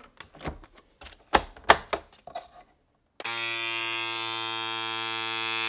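A few clicks and knocks as the meat bag is set into the vacuum sealer. About three seconds in, the FoodSaver GameSaver Big Game vacuum sealer's pump motor starts and runs with a steady electric hum, drawing the air out of the bag.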